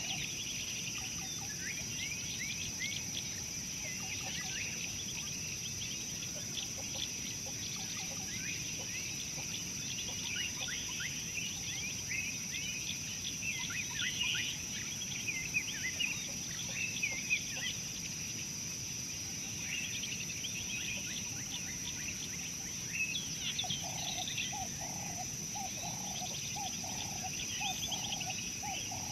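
Birds calling outdoors: many short, high, downward-sweeping chirps throughout, over a steady high-pitched tone. Near the end, a run of lower, evenly repeated calls joins in.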